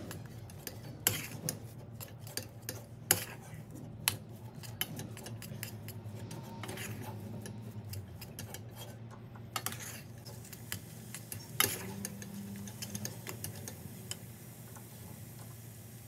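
A metal spoon stirring and scraping thick choux dough in a stainless steel saucepan as the flour paste cooks on the stove. It clinks and knocks irregularly against the pan, with a few sharper knocks, over a low steady hum.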